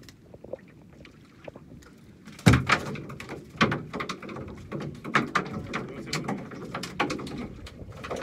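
Irregular knocks and slaps aboard a small open fishing boat at sea, the first and loudest about two and a half seconds in, then several a second.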